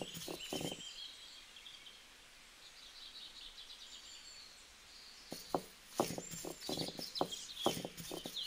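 Stone roller knocking on a flat stone grinding slab as it crushes dried red chillies, about three strokes a second, stopping for a few seconds in the middle and then starting again. Birds chirp in the background.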